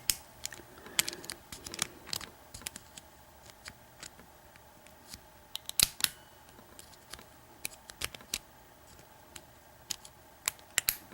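Small, sharp metallic clicks and ticks at irregular intervals from a lock pick working the pin stack of an American 5200-series padlock under heavy tension, as the pins are being set.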